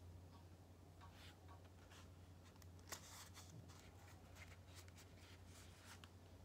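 Faint rustling of a paperback book's pages and cover being handled, a string of short soft rustles with the loudest about three seconds in, over a low steady hum.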